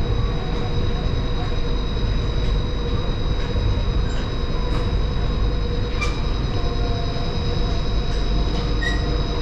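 Palm Jumeirah monorail running, heard from inside the car: a steady low rumble with a steady high whine over it and a couple of faint clicks.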